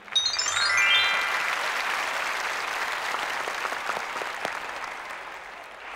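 Studio audience applauding, starting suddenly and slowly dying away. A quick descending run of chiming tones sounds over the first second.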